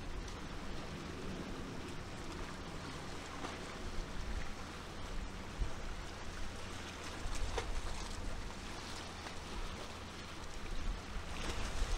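Steady seashore ambience: a constant low rumble under an even hiss of moving water, with a few faint ticks.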